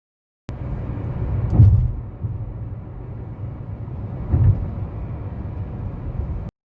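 Low, steady rumble of a moving vehicle on the road, with two heavier thumps about a second and a half and four and a half seconds in. It starts and cuts off abruptly.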